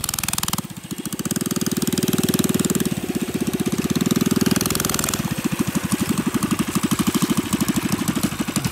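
Straight-piped mini bike's small single-cylinder engine running as it is ridden, with a rapid pulsing exhaust note. The sound changes abruptly about a second in and again about halfway through.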